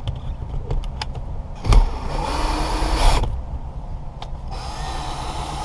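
Drill driving a windshield cut-out tool, running in two bursts of about a second each while cutting the old windshield out, with a few sharp clicks between them.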